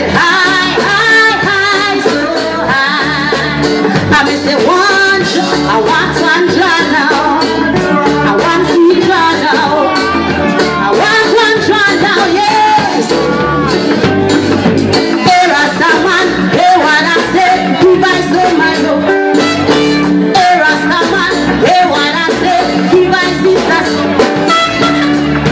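Live band playing, with a woman singing lead into a microphone over keyboard, bass and guitar in a steady groove.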